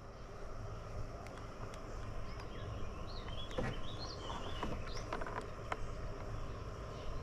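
Faint bird chirps, several short calls bunched near the middle, over a steady low outdoor rumble, with a few light clicks.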